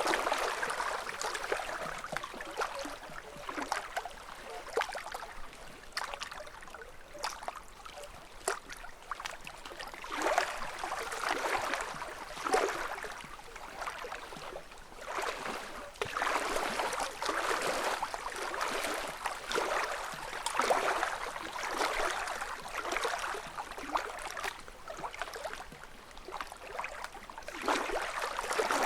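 Small ripples from a calm lake lapping against the shore, swelling and easing every few seconds, with many small splashes.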